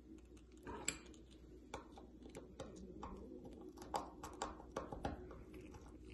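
Irregular faint clicks and taps of small thermocouple wire connectors being handled and pushed into the holes of a ceramic terminal block, with a few sharper clicks about four to five seconds in.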